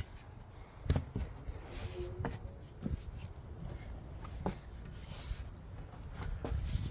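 Shoes and hands scuffing and knocking on a weathered wooden plank as a person climbs along it, with a few sharp knocks over a low handling rumble.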